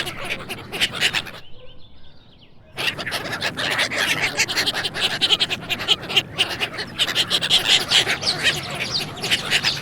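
A flock of birds calling in a dense, rapid chatter of short calls, broken by a pause of about a second and a half early on.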